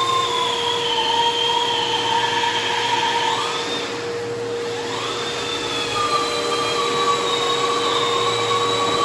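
Flex cordless long-reach drywall sander (Akku-Giraffe) running against a plastered wall, with a vacuum drawing the dust off through its hose. There is a steady hum under a wavering motor whine, which sags for a moment about halfway through and then picks up again.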